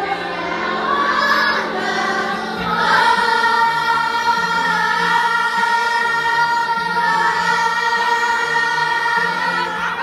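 A stage chorus singing a musical-theatre number with accompaniment, settling about three seconds in on one long held note that lasts to the close.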